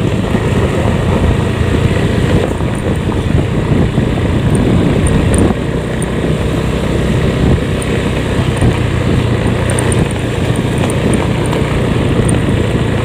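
Loud, steady wind noise buffeting the phone's microphone on a moving motorcycle, over the motorcycle's running engine.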